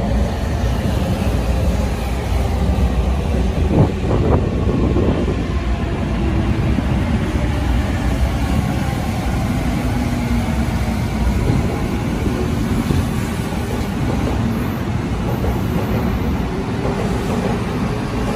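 Seibu 20000-series electric commuter train pulling out of a station stop and running along the platform, its motors and wheels making a steady rumble. A short knock is heard about four seconds in.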